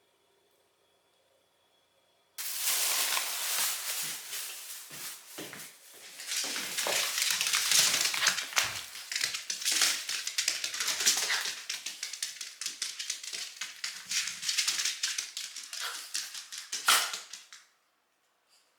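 Mameshiba (small Shiba Inu) eating fast: a dense run of quick crunches and clicks that starts suddenly after about two seconds of near silence and stops abruptly near the end.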